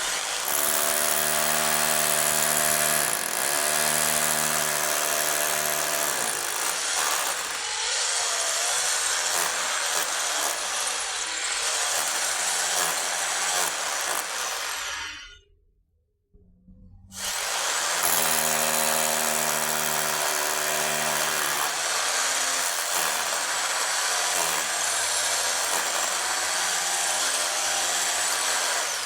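Power drill running under load: a loud, steady tool noise with a constant motor pitch, cutting out about halfway through and starting again a second and a half later.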